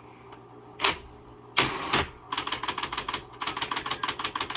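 1979 Smith-Corona Coronamatic electric typewriter being typed on, its motor humming steadily. A few separate key strikes come first, then a fast run of keystrokes in the second half.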